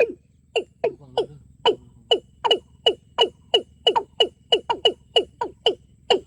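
A rapid series of short animal calls, each falling in pitch, about two and a half a second at first and speeding up to about four a second past the middle.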